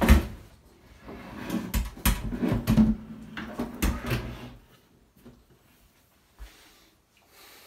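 Knocks, clunks and scraping of a Brumas BrauEule III stainless-steel brewing pot being handled and set down on a counter, a string of strikes over the first four or five seconds, then quiet apart from one light click.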